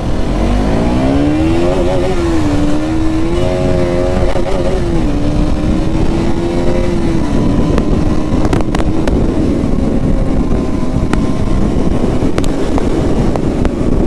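KTM Duke 250's single-cylinder engine pulling away, its pitch climbing over the first couple of seconds, then easing down in a few steps to a steady cruise.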